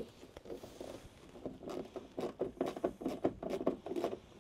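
A screw being hand-driven through a mud-flap bracket into the van's wheel arch: a fast, irregular run of short clicks and scrapes that gets busier about a second and a half in.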